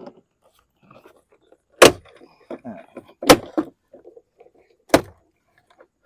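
Plastic push-pin clips of a 2009 Lincoln MKZ front door panel snapping out of the door as the panel is pulled off: three sharp snaps about a second and a half apart, with quieter knocks and scrapes between.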